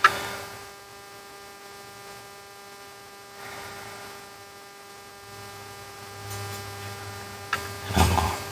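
Steady electrical mains hum with a high, even buzz under it during hand soldering. There is a sharp click right at the start and a short, louder sound about a second before the end.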